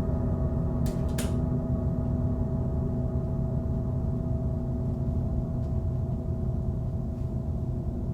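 Steady low drone of several held tones, with two or three sharp clicks in quick succession about a second in.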